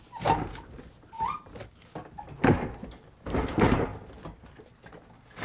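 Old built-in dishwasher being pulled out from under a kitchen counter: a few separate scrapes and knocks as its metal body slides out, the strongest about two and a half and three and a half seconds in.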